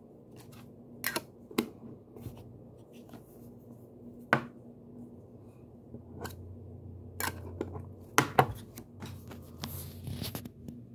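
Small metal putty tin being handled and its lid pressed shut: a series of sharp metallic clicks and knocks, the loudest pair about eight seconds in, then some rustling near the end.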